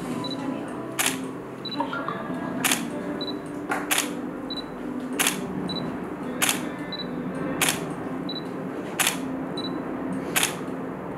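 Camera shutter firing about once every 1.3 seconds, eight clicks in all, each paired with a short high beep, over soft background music.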